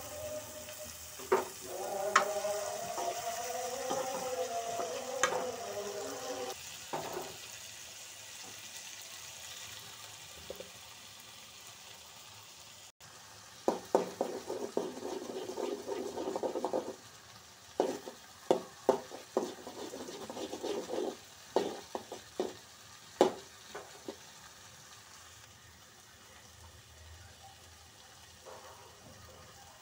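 Diced potatoes and green beans sizzling in a frying pan, with a spatula clicking and scraping against the pan as they are stirred in bursts. The stirring is loudest in the middle of the stretch and eases off near the end.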